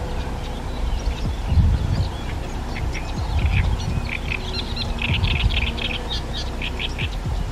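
Great reed warbler singing: phrases of rapid, repeated short notes beginning about a second and a half in and strongest in the second half, over a low, uneven rumble.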